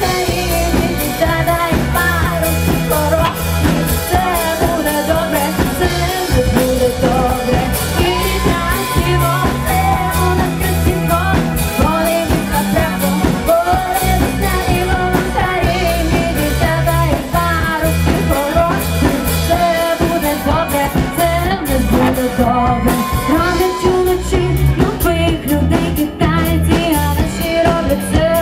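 Cover band playing rock live, with a singer over electric guitar, bass and drums.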